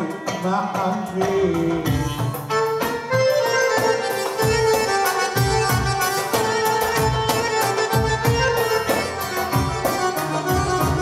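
Live Arabic band playing: a violin melody over a hand-drum rhythm.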